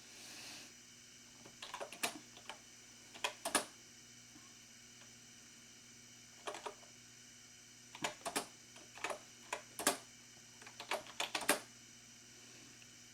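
Typewriter-style wireless keyboard being typed on: short runs of clacking keystrokes with pauses in between, the busiest stretch near the end.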